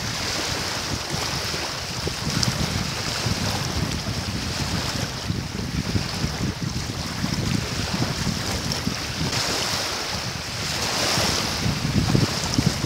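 Strong wind buffeting the microphone over small wind-driven waves lapping against a rocky shore, with the gusts swelling near the end.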